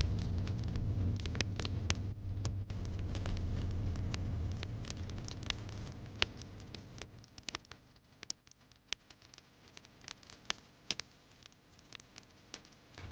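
Wood fire crackling in a fireplace: irregular sharp pops and snaps over a low rumble that fades away about halfway through, leaving the crackles on their own.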